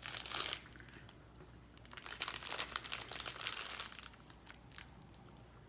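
Plastic snack wrapper crinkling as it is handled and opened, in two spells: briefly at the start and again for about two seconds in the middle.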